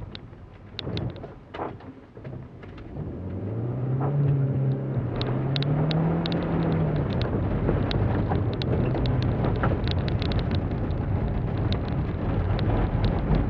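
Holden Barina's four-cylinder engine pulling hard under acceleration, heard inside the cabin: the revs climb from about a quarter of the way in, fall back around halfway, then hold steady. Throughout, sharp clicks of grit and stones strike the car's body and underside over the rumble of the tyres on the loose surface.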